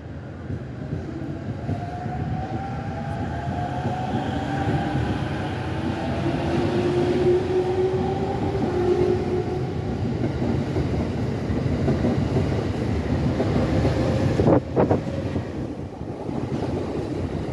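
JR East E231 series commuter train pulling away from the platform and accelerating past. Its VVVF inverter traction motors whine in slowly rising tones over the rumble of wheels on rail, with one sharp knock near the end.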